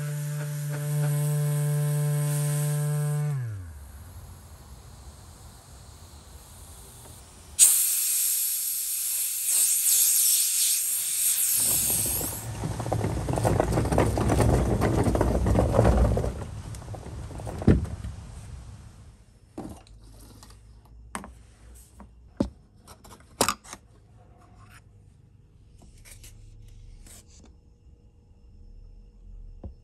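Electric palm sander running with a steady hum, then spinning down with a falling pitch about three and a half seconds in. Later there is a loud hiss for about four seconds, a longer rushing noise, and then scattered taps and knocks.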